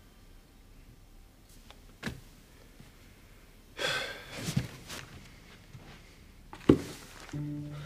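A person sighing heavily about four seconds in, then a single sharp thump near the end, in a quiet room. Soft music tones start just before the end.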